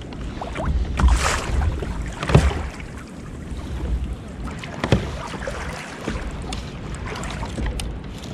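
Water sloshing against a Hobie Outback kayak's plastic hull, with wind rumbling on the microphone, and two sharp knocks about two and a half and five seconds in.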